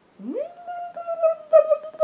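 A newborn baby crying: one long wail that rises at the start, holds a high, steady pitch, then breaks and falls at the end.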